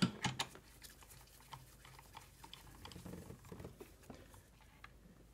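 Faint, irregular clicks and handling noises of a socket being worked on a screw of the plastic air filter housing, with a few sharper clicks in the first half second.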